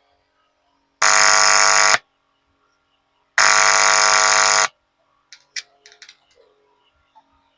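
Power amplifier driving its loudspeaker with a loud buzzing tone, twice, about a second each, at full volume now that the amplifier's low-output fault is being cured. A few sharp clicks follow.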